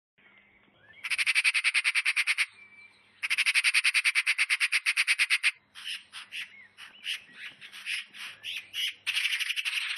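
A bird giving rapid, dry rattling trills: two long rattles of fast repeated notes, then a broken stretch of shorter chattering bursts, and another rattle starting near the end.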